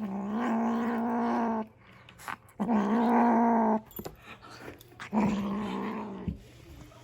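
Kitten growling in three long, low, steady growls, each a second or more. It is guarding its food at treat time.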